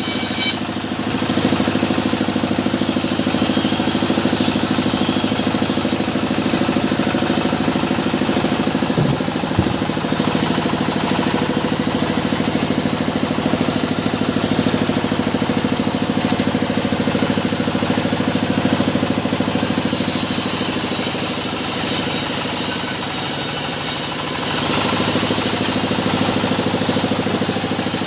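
Engine driving a small sawmill, running steadily, with a high hiss over it. There is a brief knock about nine seconds in.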